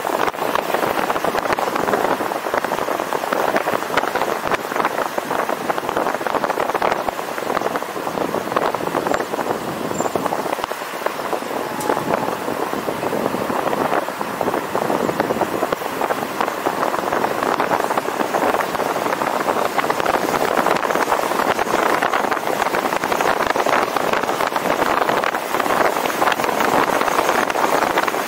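Steady rushing noise of a moving vehicle, with road and wind noise at an even level throughout.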